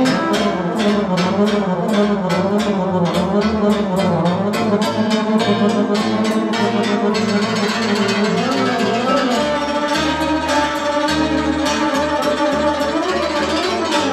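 Live lăutari band playing an instrumental dance tune: accordion, electric violin and cymbalom over keyboards and double bass, with a steady beat that softens about seven seconds in.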